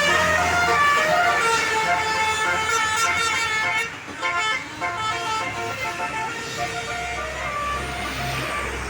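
Tour bus's 'Basuri' telolet horn playing a multi-note tune. Several pitched tones step from note to note, over the low rumble of the bus, dipping briefly partway through and fading toward the end.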